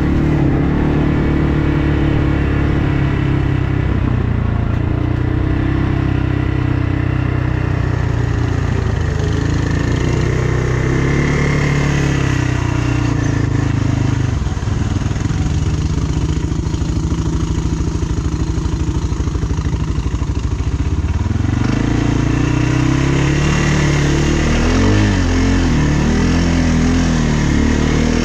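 ATV engine running under way on a trail, its pitch rising and falling with the throttle: it eases off around the middle and revs back up in the last few seconds.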